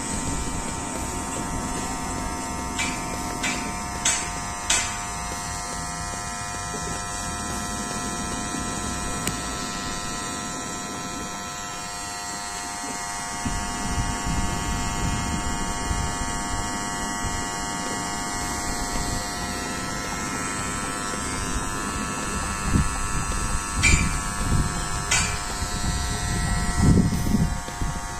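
Nova NHT 1073 cordless beard and hair trimmer running: a steady electric buzz from its motor and blade. A few light clicks come about three to five seconds in and again near the end, with some handling rumble in the last few seconds.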